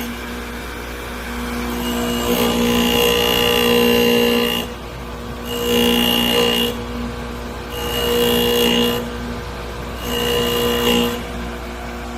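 Drill-sharpening grinder running with a steady motor hum, while a drill bit is ground against the wheel in four separate passes, each adding a high grinding hiss with a ringing tone; the first pass is the longest.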